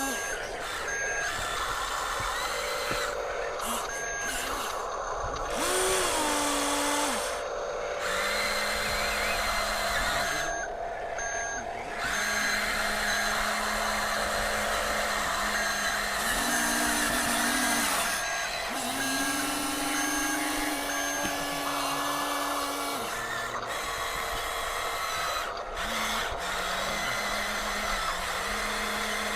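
Huina radio-controlled construction toys (excavator, bulldozer and dump truck) running their small electric motors and gearboxes: a steady whine made of several tones that step up and down in pitch as the controls change, with short on-off beeping now and then.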